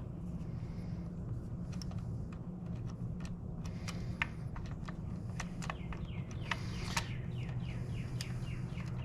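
Scattered small metallic clicks and taps of hand work on motorcycle shift-linkage parts over a steady low hum, with a bird giving a quick run of short falling chirps in the last few seconds.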